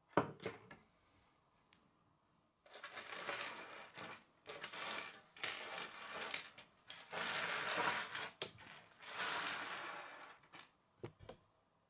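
A sharp knock on a wooden tabletop, then several seconds of loose plastic K'nex pieces clattering and rattling against each other and the table as they are rummaged through and pushed along, ending with a couple of clicks.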